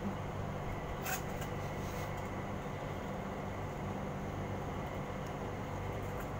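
Steady low mechanical hum over a background hiss, with one brief sharp click about a second in.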